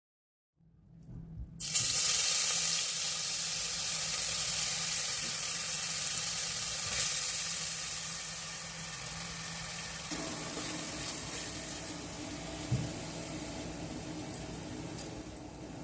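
Food frying in hot oil in a pan: a steady sizzle that starts about a second and a half in and eases a little after about ten seconds.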